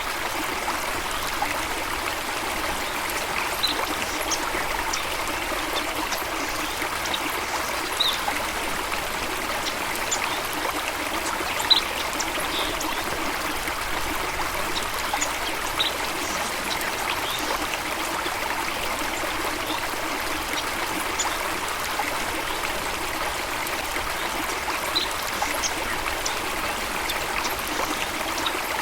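Steady running water of a stream or small waterfall, with short, high bird chirps every few seconds; the loudest comes about twelve seconds in.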